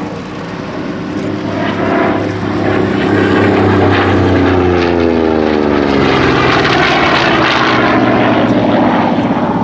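Goodyear FG-1D Corsair's Pratt & Whitney R-2800 radial engine and propeller on a flypast. It grows louder over the first few seconds, then the engine note falls in pitch as it passes, about five seconds in.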